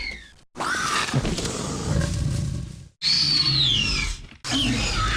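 Dinosaur-movie velociraptor screeches and roars dubbed over a lunging dog: three calls that fall in pitch, each cut off abruptly into silence.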